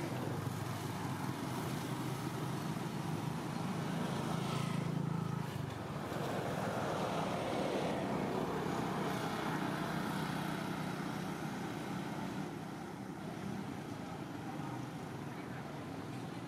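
Steady outdoor background noise: a low hum and rumble under a broad hiss. The noise swells a little around the middle.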